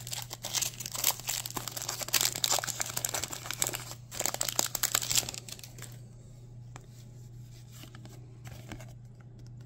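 Foil wrapper of a Pokémon card booster pack crinkling as it is torn open and the cards are slid out. The crinkling stops about halfway through, leaving only a few faint ticks of cards being handled.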